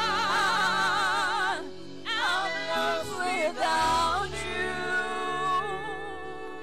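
Gospel worship song: a woman's voice sings with wide vibrato over sustained chords and bass, breaking off twice. About four seconds in the voice fades, leaving held chords and a low bass note.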